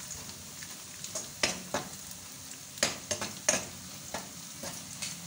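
Sliced onions frying in hot oil in a wok, sizzling steadily, with irregular clicks and scrapes of a metal spoon stirring them against the pan. The onions are at the light-brown stage.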